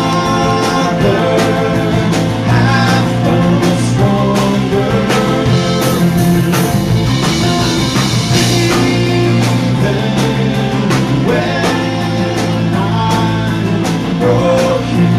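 Live rock band playing, with a singer's vocals over a steady drum beat and bass.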